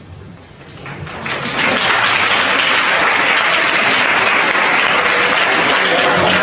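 Audience of schoolchildren applauding in a hall. The clapping builds up about a second in and then holds steady.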